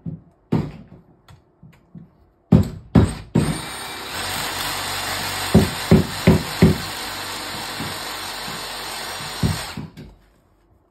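Cordless drill driving a securing screw into the flue fitting, running steadily for about six seconds with four heavy knocks near the middle. Handling clicks and knocks before the drill starts.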